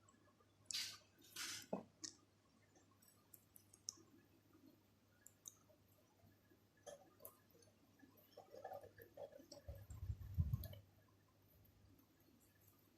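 Faint scattered clicks and scrapes of budgerigars pecking and nibbling at food in their cage. A brief double rustle comes about a second in, and a low bump around ten seconds in.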